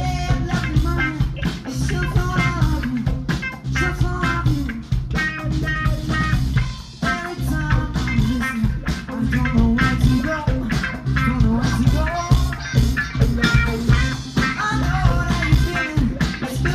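Live band playing amplified rock music on drum kit and electric guitars.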